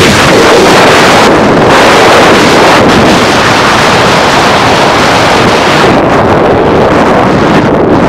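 Heavy wind rush buffeting the camera microphone in a moving car, with road noise underneath, easing a little near the end.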